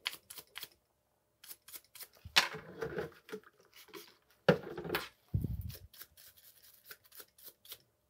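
A stiff plastic brush scrubbing hardened paste off the threads of a carbon Race Face Next SL crank arm and its spindle: a run of short, quick brushing strokes, with louder scratchy bursts about two and a half and four and a half seconds in.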